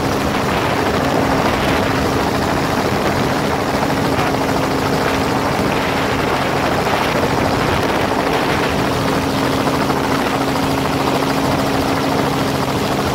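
Helicopter in a steady hover: loud, even rotor and engine noise with steady low hums beneath it.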